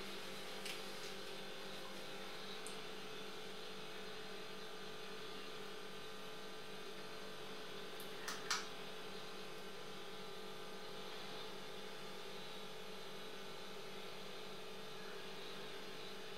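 Steady electrical hum made of several constant tones, with two quick clicks close together about halfway through.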